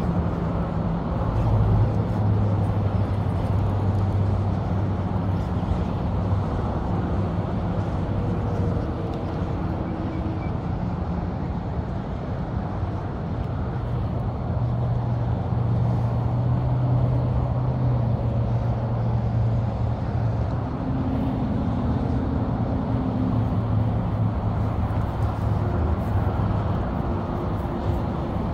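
Steady highway traffic noise: a continuous low rumble of passing cars and trucks, with engine drones that swell and fade every several seconds.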